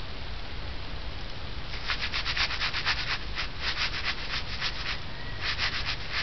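Kittens' paws rustling hay and scratching cardboard: a steady low rumble with quick scratchy rasps coming in several bursts from about two seconds in.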